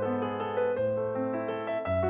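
Background music on a keyboard instrument: slow, sustained chords over a low bass note, with the chord changing about every second.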